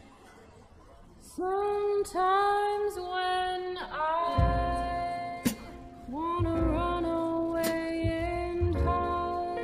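Background song with a female-sounding sung melody over a low bass beat, coming in about a second and a half in after a quiet pause.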